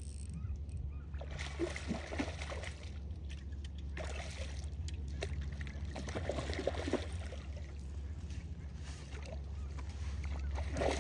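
A hooked coho salmon splashing and thrashing at the water's surface, with short bursts of splashing and sloshing, over a steady low rumble.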